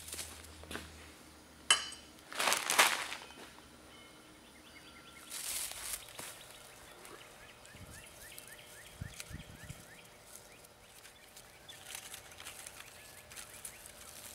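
Rustling and crunching in dry leaves and brush, loudest about two seconds in, with faint bird chirps and a few soft knocks.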